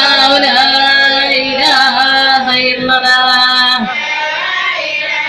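A voice singing a chant in long, held notes with a slight waver. The held line breaks off about four seconds in.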